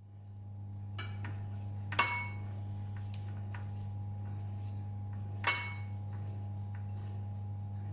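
Two sharp clinks of glass bowls and kitchenware, each with a brief ring, about two seconds in and again about five and a half seconds in, with softer taps between as chicken strips are pressed into an oat coating. A steady low hum runs underneath.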